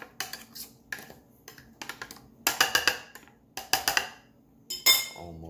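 Plastic clicks and knocks as a spatula taps and scrapes inside a mini food processor's plastic bowl and the lid is handled. The taps are irregular, loudest near the end.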